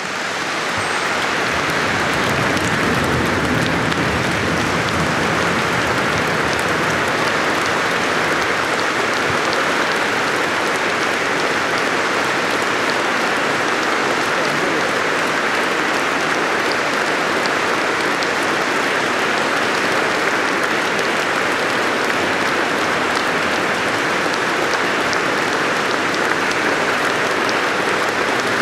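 Standing ovation from a large hall audience at the close of a speech: dense applause that swells over the first two seconds and then holds steady.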